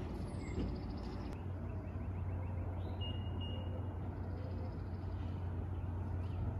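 Steady low vehicle hum over faint outdoor background noise, with a brief thin high tone about three seconds in.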